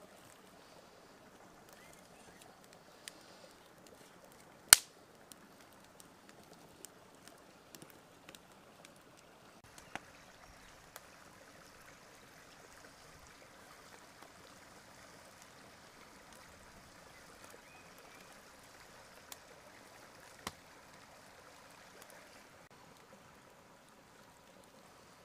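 Hands working a string-tied raw lamb roll on a wooden stump: scattered small taps and clicks over a faint steady hiss, with one sharp loud click about five seconds in and smaller ones around ten and twenty seconds.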